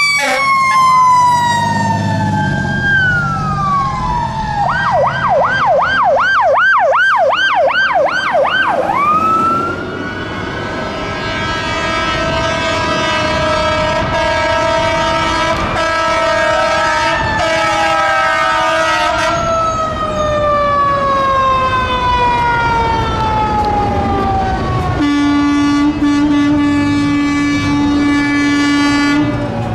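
Fire engine sirens wailing in long rising and falling sweeps, several at once. About five seconds in, one switches to a fast yelp for a few seconds. Near the end comes a long steady low horn blast, with truck engines running underneath.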